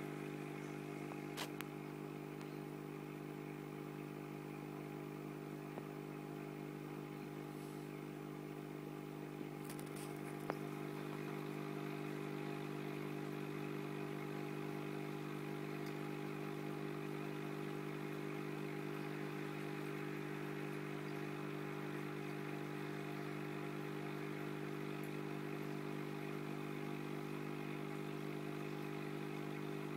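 Steady electrical hum of an aquarium pump, with a few faint clicks about a second and a half in and again around ten seconds in.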